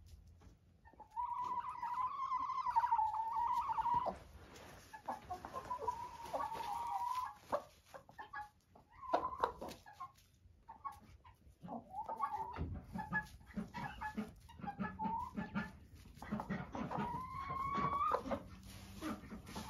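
A hen giving a series of long, drawn-out wavering calls, some held for two or three seconds: the pre-laying call of a hen that needs to lay an egg and has not yet settled on a nest.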